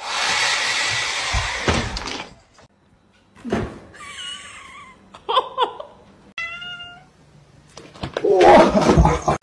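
A hair dryer blowing for about two seconds and cutting off, then a cat meowing several times in short, wavering calls. Near the end comes a louder, harsher burst.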